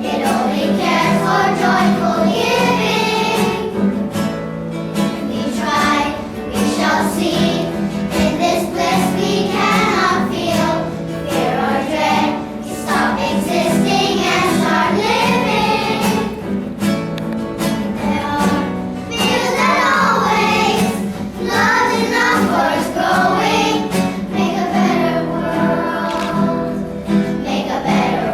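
A group of children singing a song together in unison, with instrumental accompaniment.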